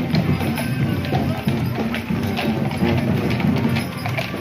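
Street parade sound: a crowd's voices and music mingled, with many short knocks running through it.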